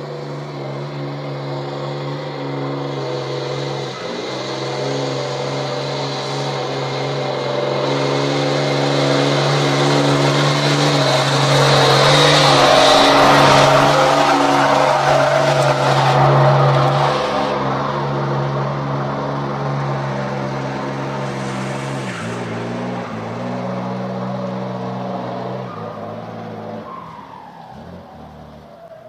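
A vehicle engine running hard, its low hum stepping in pitch a few times, with a rough hiss that swells to its loudest about halfway through and then fades.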